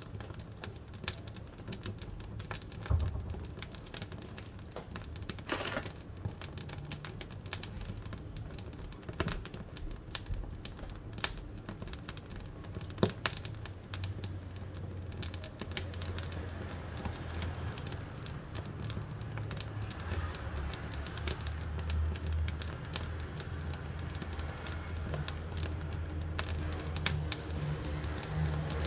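Wood fire crackling inside a wood-burning stove: irregular sharp pops and snaps over a low steady rumble of the flames, which grows stronger about halfway through.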